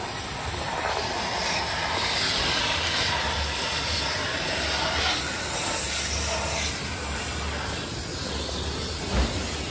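Vacuum cleaner running, its nozzle sucking over the amplifier rack in a car's boot. The hiss swells and eases as the nozzle is moved. One short thump near the end.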